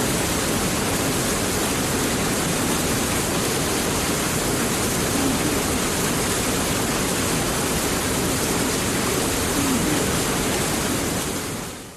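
Steady rain, an even wash of falling drops, fading out near the end.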